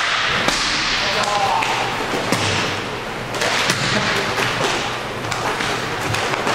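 Inline hockey play: sharp clacks and knocks of sticks striking the puck, the floor and each other, scattered irregularly, over steady rink noise and players' voices.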